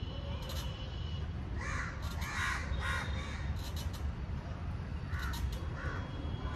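Crows cawing in short repeated calls, a cluster about two seconds in and another about five seconds in, over a steady low rumble.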